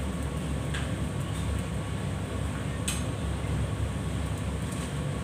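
Kitchen range hood fan running with a steady low drone. Two light clinks of a utensil against a pan come about a second in and near the three-second mark.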